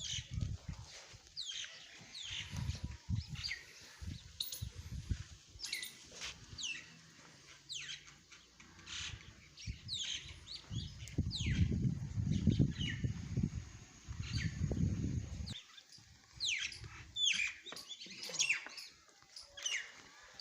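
Small birds chirping over and over, each chirp short, high and sliding downward. Uneven bursts of low rumble come and go underneath, loudest through the middle.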